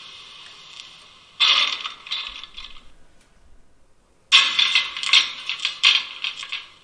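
Servo-driven pantograph of a 1:32 scale model of the E 71 electric locomotive moving, with the decoder's matching pantograph sound: a short burst of clattering about a second and a half in, then a longer run of clicks and rattles from about four seconds in as the pantograph rises.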